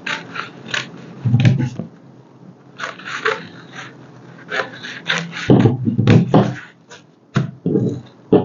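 Scissors snipping through a folded stack of tissue paper in a run of crisp cuts, with the paper rustling. A few louder, dull thumps fall about a second and a half in and around six seconds in.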